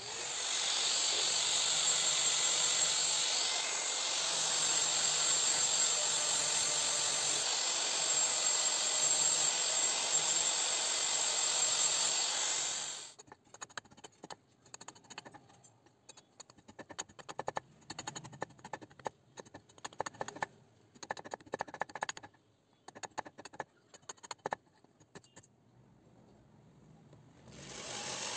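A steady machine noise lasting about thirteen seconds. Then a knife blade is worked by hand into a block of wood, shaving it into a handle, with irregular scrapes and clicks of chips coming off. Right at the end an electric drill starts boring into the wooden handle block.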